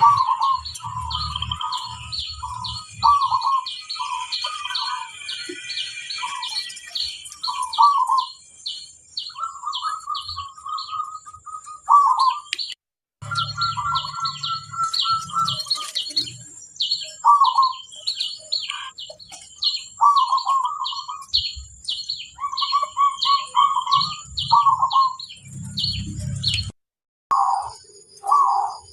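Zebra doves (perkutut) cooing: short rolling coo phrases repeated again and again, with a fast, even run of high chirps from a smaller bird behind them. The sound cuts out briefly twice, about halfway through and near the end.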